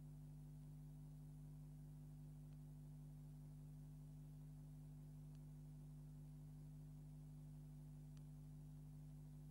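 Near silence: a steady low electrical hum with faint hiss and a few faint ticks.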